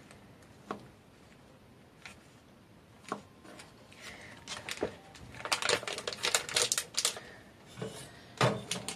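Kitchen knife cutting a block of bacon against a plastic cutting board: a few separate knocks, then a quick run of tapping strokes a little past halfway, and one louder knock near the end.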